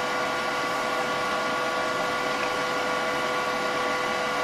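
Steady machine whir, a fan-like noise with several steady whining tones over it.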